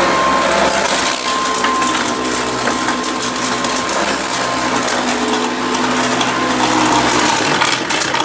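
Hoover Custom Convertible upright vacuum cleaner running while sucking up debris: a steady motor whine under a dense, rapid clatter of hard bits rattling through the machine. Near the end the low hum drops away.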